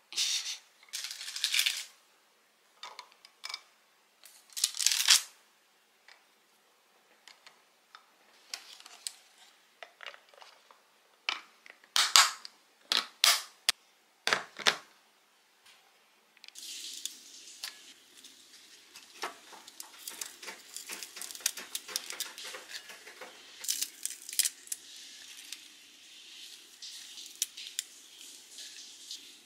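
Hands handling food. Chocolate pretzels rustle and tap against a glass container, and a plastic lid is pressed on with a few sharp clicks of its snap latches. From about halfway a steady crackling rustle follows as fresh spinach leaves are handled.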